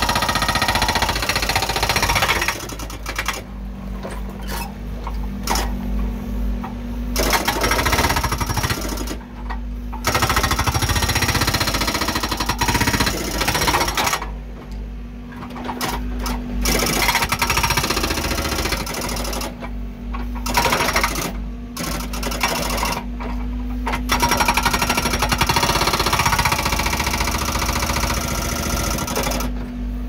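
Backhoe-mounted hydraulic breaker hammering on concrete in bursts of a few seconds, each a fast, continuous pounding, with short pauses between them. Underneath, the backhoe's diesel engine keeps running steadily.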